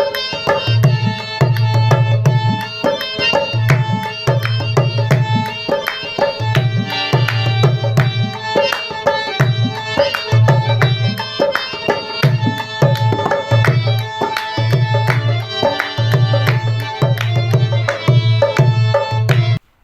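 Background music with a steady drum rhythm under sustained melodic tones. It cuts off suddenly just before the end.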